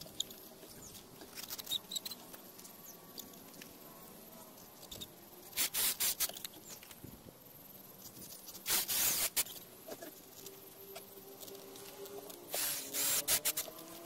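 Cordless drill run in three short, stuttering bursts against a bicycle tyre wrapped on a plastic bin wheel, a harsh hissing whirr each time.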